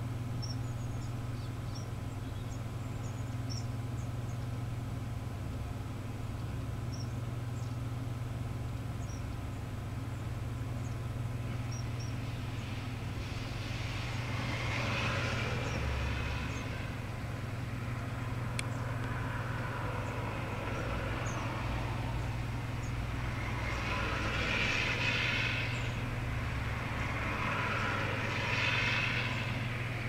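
Road traffic passing: four vehicles in turn swell up and fade away over a few seconds each in the second half, over a steady low hum. In the first part there are short, high, thin calls of small birds.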